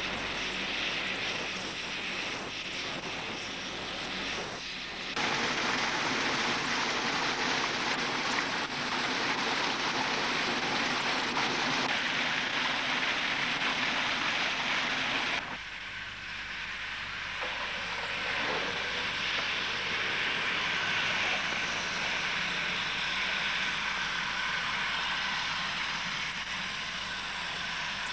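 South African Railways class 25 condensing steam locomotive running under way: a steady rushing with no exhaust beat, heard from the footplate. About halfway through it drops to a quieter sound as the engine is seen from the lineside, with a faint high whine from its condenser exhaust turbines.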